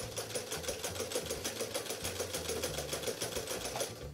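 Vintage electric Brother 345 sewing machine running and sewing a zigzag stitch, a fast, even clatter of about eight stitches a second that stops shortly before the end.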